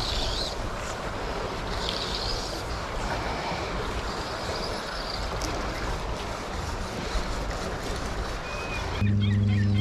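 Wind buffeting the microphone over the steady rush of tidal water in an inlet. About nine seconds in the sound cuts abruptly to a louder, steady low drone with quick high chirps above it.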